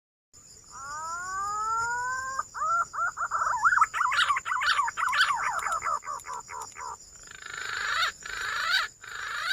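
Green pigeon (punai) calling: a rising whistled glide, then a run of quick, wavering whistled notes, turning to rougher, harsher notes near the end.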